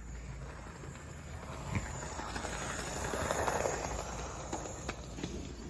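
Toy train running on its track, its motor and wheels rattling louder as it passes close by about three to four seconds in, then easing off, with a few light clicks near the end.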